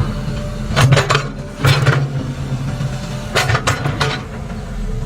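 Excavator diesel engine running steadily, with several sharp metallic clanks about a second in, near two seconds and between three and four seconds in.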